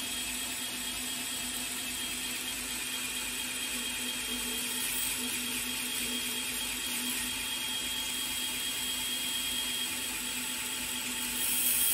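Brodbeck belt grinder running steadily with a Gator A45 abrasive belt while the heel and choil of a san mai chef knife, wrought iron over a CruForgeV core, are lightly ground against it to blend them. The grinding hiss gets louder near the end.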